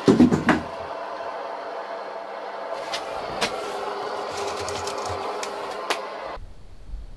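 Knocks and rustling from a handheld camera being moved about, then a steady hum with a few light clicks that cuts off suddenly about six seconds in.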